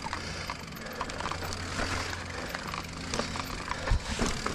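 Giant Reign mountain bike rolling over a rocky sandstone trail: tyres crunching on grit and stone, with scattered clicks and rattles from the bike and a sharper knock near the end.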